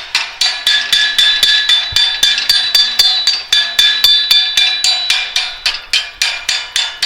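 Chipping hammer rapidly striking a fresh weld on steel to knock the slag off, about four blows a second, the steel ringing after each blow.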